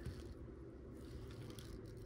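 Faint handling noises: gloved hands shifting and holding the plastic case of a vintage transistor radio, with a soft knock at the start and light scrapes and clicks, over a low steady background hum.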